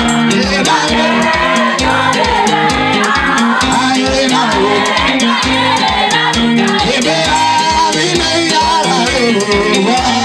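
Dance music with singing over a steady, driving beat.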